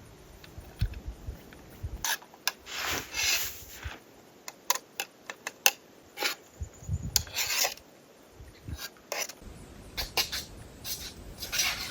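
A utensil scraping and stirring thick, sticky food in a camp cooking pot: irregular scrapes and clicks, with a few longer scraping strokes.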